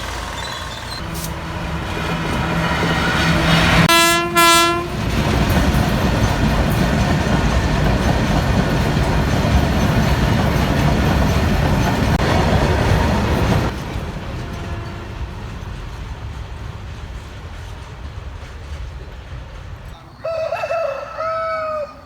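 A passing train: its horn sounds briefly about four seconds in, then the loud rumble and clatter of the cars runs for about ten seconds and drops away. A different pitched, wavering sound comes in near the end.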